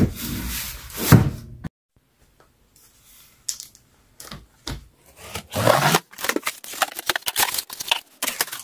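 A cardboard box being handled and opened: a couple of thumps as it is set down, then, after a short silent gap, a scissor blade scraping along the packing tape, followed by cardboard flaps rustling and light clicks from the cans inside being touched.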